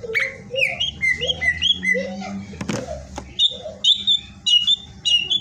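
Cucak ijo (green leafbird) singing vigorously, a fast, varied run of whistled and chirped notes, many of them sliding up or down. A sharp click comes about two and a half seconds in.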